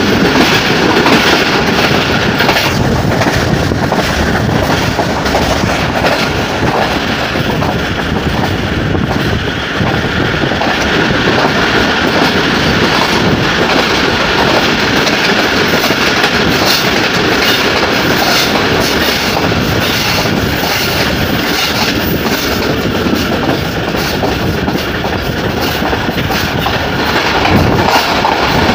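Passenger train running at speed through a tunnel, heard from an open door of the carriage: loud, steady rumble and rattle of the wheels on the rails.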